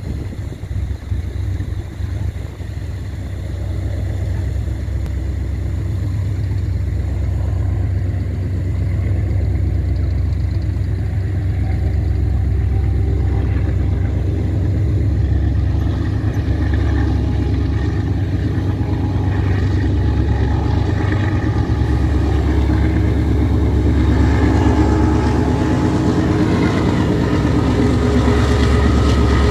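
Freight train on Kenya's Standard Gauge Railway, hauled by two diesel locomotives, approaching along an elevated viaduct. A steady low rumble grows louder throughout, and the locomotives' engine drone comes up through it in the last dozen seconds or so.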